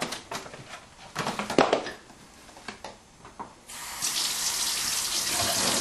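A few sharp clicks and knocks as a plastic container of strawberries is handled, then, about two-thirds of the way through, the kitchen faucet is turned on and water runs steadily into the sink.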